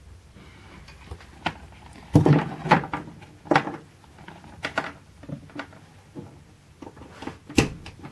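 Handling noise: scattered knocks and clicks as copper-tube electrodes and their test leads are moved about over a plastic tool case, about a dozen short sounds, the loudest a little over two seconds in and another near the end.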